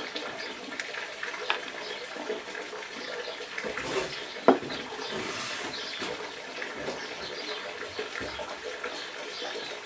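Light clicks and rustles of white plastic cable ties being handled and threaded around a ficus's roots against a rock, with one sharper click about four and a half seconds in, over a steady background hiss.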